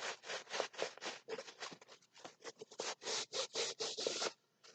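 Rolled diamond-painting canvas with its plastic cover film being handled and unrolled by hand, giving a quick run of rubbing, scratching strokes that stops shortly before the end.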